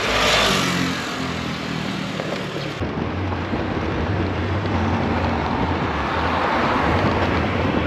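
Riding an e-bike along a city street: wind rushing over the microphone over road and traffic noise, with a steady low hum. The sound changes suddenly about three seconds in.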